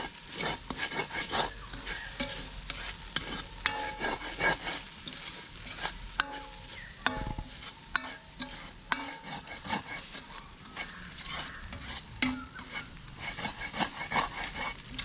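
Shredded cabbage stir-frying and sizzling in a large metal wok, the metal ladle scraping and clinking against the pan in sharp, irregular knocks as it is stirred.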